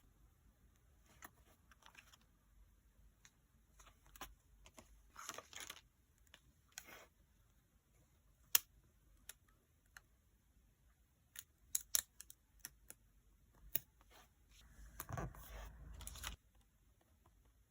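Journal-decorating desk sounds: scattered light taps and clicks of stationery being handled, with short paper rustles and one longer rustle of a little over a second about fifteen seconds in.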